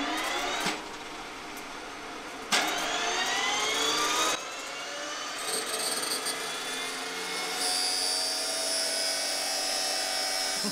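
GTD-350 helicopter turboshaft engine spinning up with a rising turbine whine. A sharp crack comes about two and a half seconds in and is followed by a fresh rising sweep, and a steady high whine sets in later. The owner takes the noise for something rubbing inside the engine.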